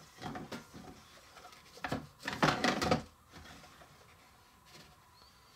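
Small baking pans and baked pieces being handled while moving them onto another tray: a few light knocks at the start, then about a second of scraping and clattering about two seconds in.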